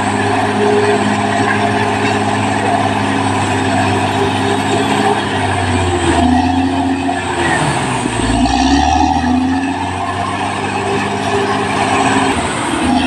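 Cat D6R XL bulldozer's diesel engine running steadily, its pitch dropping and then climbing again around the middle.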